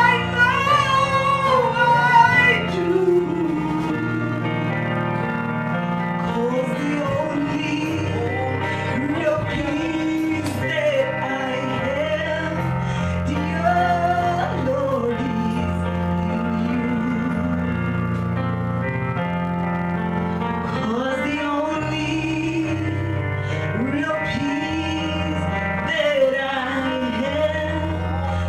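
A woman singing a worship song into a handheld microphone over sustained instrumental accompaniment; her voice is loudest in the first few seconds, then carries on at an even level.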